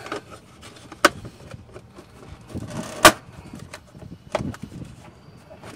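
Hands handling a plastic dry box and its wiring: two sharp plastic clicks, about a second in and about three seconds in, the second the louder, with rubbing and rustling of the box and wires between and after.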